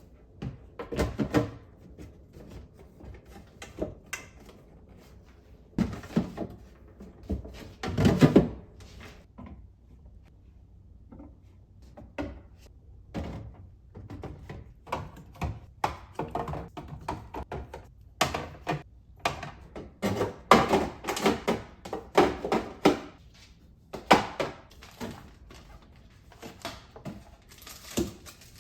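Household items and food containers knocking and clunking as they are handled and set down during a fridge clean-out: scattered thunks and clatters, loudest about 8 seconds in and again around 20 seconds in.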